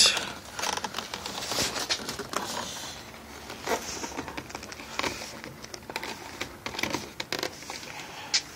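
Irregular clicks, taps and rustling as hands handle and press a car side mirror's plastic housing into place, with a sharp click at the start and another near the end.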